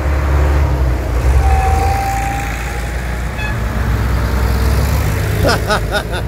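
Diesel engines of vintage farm tractors running as they drive past one after another: a steady, loud low rumble.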